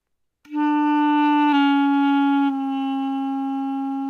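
Clarinet playing a held E and then stepping down to two lower notes as fingers are added, the first step about a second after it starts and the next a second later. The second finger is deliberately placed off-centre so its tone hole doesn't seal and air leaks out, which tends to make the lower notes sound a little airy and off in pitch.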